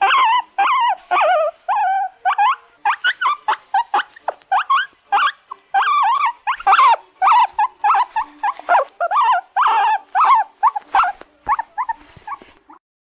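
Guinea pig squealing in a rapid, unbroken run of short, high calls, several a second, that stops shortly before the end.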